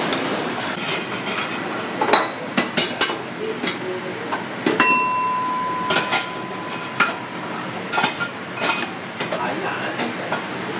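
A cooking ladle clinking and knocking against stainless steel pots: a string of irregular sharp clinks over a steady background hiss.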